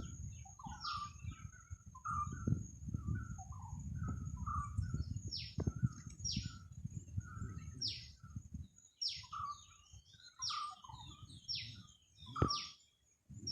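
Small birds calling: repeated short, high notes that slide down in pitch, mixed with lower chirps, about one or two a second. Wind buffets the microphone with a low rumble that comes in gusts and drops away about nine seconds in. A faint steady high whine runs underneath.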